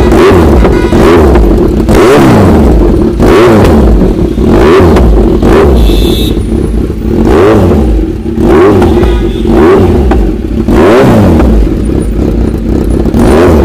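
Kawasaki Z900's inline-four engine, loud through an Austin Racing slip-on exhaust, revved again and again. Each blip rises in pitch and falls back to idle, about every one and a half to two seconds.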